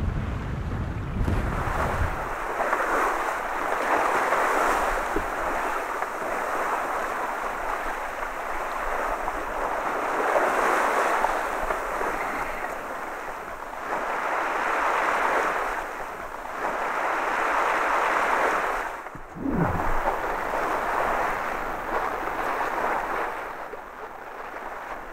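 Water rushing and splashing along the hull of a small sailing boat under way in a choppy sea, swelling and easing every few seconds as she rides the waves, with wind on the microphone.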